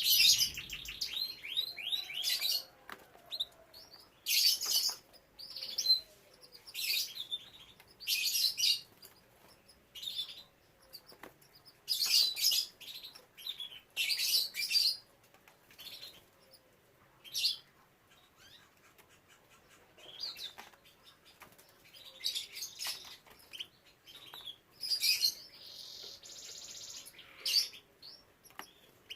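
Pet canaries chirping in short, high bursts every second or two, opening with a quick trill.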